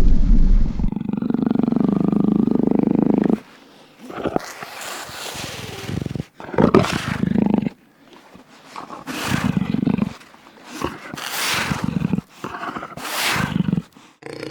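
Jaguar calling: a long low growling call, then a series of short rasping roars, about one every second or so. A different recording cuts off about a second in.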